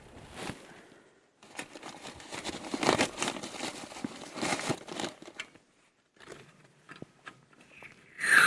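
Crinkling and rustling of crinkly material, such as plastic or packaging, being handled. It comes in a dense stretch of irregular crackles, then a few scattered clicks, and ends in a louder burst.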